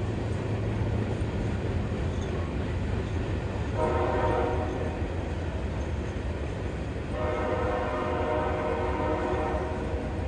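Freight train rolling past with a steady low rumble, its locomotive horn sounding two blasts: a short one about four seconds in and a longer one a few seconds later.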